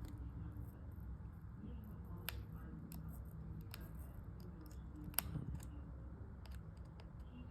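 Small metal clicks and ticks of a precision screwdriver working at an iPhone's tiny screws, scattered and irregular, with two sharper clicks about two and five seconds in, over a low steady hum.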